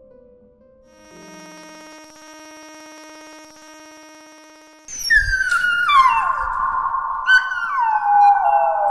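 A steady held electronic tone, then, about five seconds in, a dog howling: a run of long, loud wails, each sliding down in pitch and overlapping the next.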